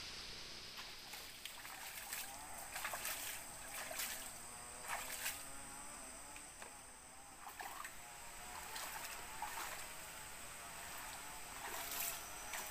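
Water splashing and sloshing in a container in irregular short bursts, over a steady hiss of rain.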